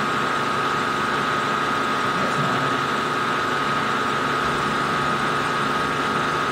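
Milling machine spindle running steadily with an even whine while an end mill takes a light finish pass in a slot in steel; the cut is so light it is barely making a noise.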